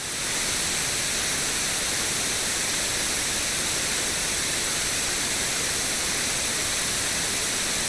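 Steady, even hiss of broad noise, like static, with no tone in it; it cuts off abruptly near the end.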